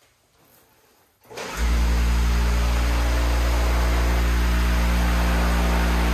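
A 1.75-horsepower induction motor, powered by the inverter, switches on about a second in. It comes up to speed almost at once and then runs steadily with a loud low hum and whir.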